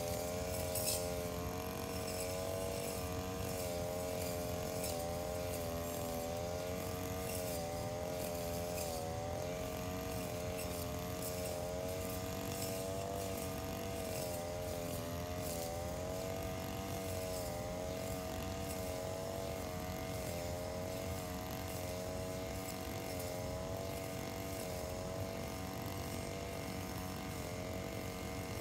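Engine-powered brush cutter running steadily while cutting grass, its engine note wavering slightly up and down.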